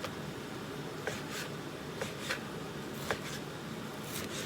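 Onion, ginger and garlic sizzling in oil in a pot, a steady hiss, with a few irregular sharp taps of kitchen utensils.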